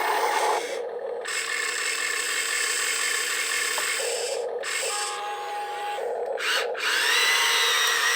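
Small electric motors of a Huina RC construction model whining and changing pitch as it works sand, with a gritty scraping. Near the end a louder whine rises and then holds steady.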